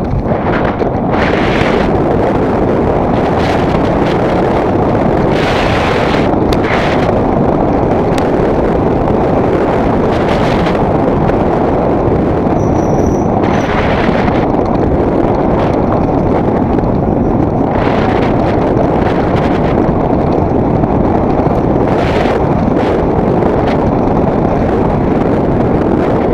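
Wind buffeting the microphone of a Giant Glory downhill mountain bike at speed down a dirt trail, over a steady rumble of tyres on the ground. Brighter bursts of clatter every second or few as the bike hits bumps and roots.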